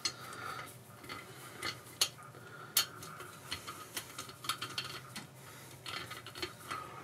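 Socket ratchet wrench clicking in irregular runs of small ticks as it works the cylinder head bolts loose on an air compressor pump, with a few sharper metallic clicks.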